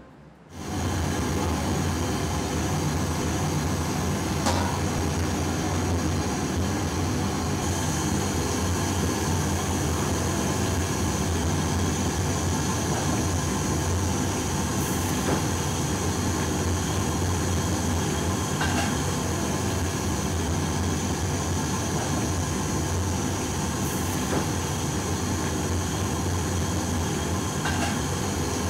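Steady rumbling hiss of a steamer pot over a burner, steaming milkfish, starting abruptly about half a second in, with a few faint clicks.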